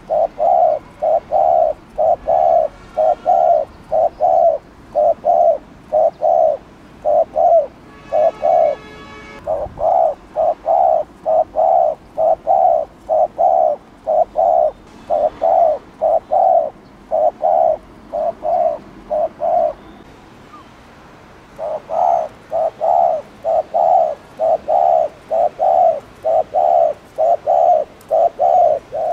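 Spotted dove giving its rapid bowing 'gù' coo: short low coo notes about twice a second, breaking off for about two seconds near two-thirds of the way through. A different call with a richer, buzzier tone sounds for about a second roughly a quarter of the way in.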